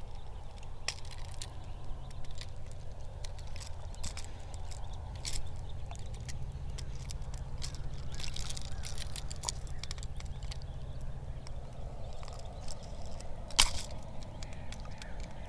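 Pliers and a jerkbait's treble hooks clicking as the lure is worked loose from a striped bass's mouth: scattered small sharp clicks, one louder near the end, over a steady low rumble.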